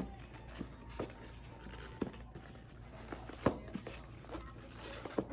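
A few scattered clicks and knocks, roughly a second apart, from airsoft guns and their parts being handled.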